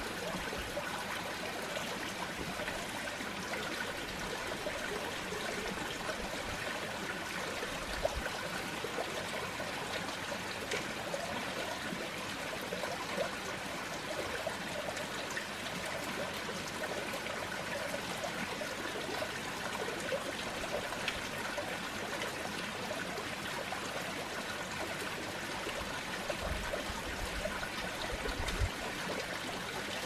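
Water trickling steadily into a small pond, an even splashing hiss with a few faint knocks now and then.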